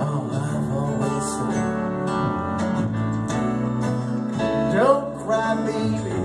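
Live acoustic band music: strummed acoustic guitars over upright bass, with no sung words.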